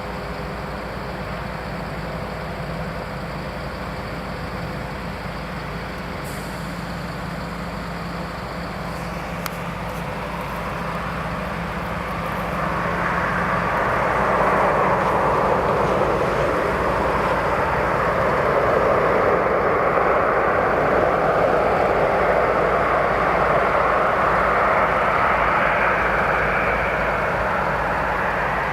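Gulfstream G550 business jet's twin Rolls-Royce BR710 turbofans on landing, a steady jet rush. It grows louder about twelve seconds in and stays loud.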